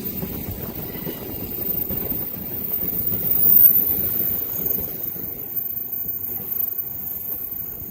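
Train passing close by: a steady rumbling roar that swells to its loudest about halfway through, then eases.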